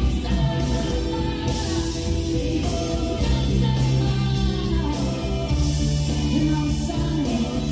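Rock song with a singer, guitar and a steady beat, played back through a Yamaha CA-810 stereo integrated amplifier and its speakers.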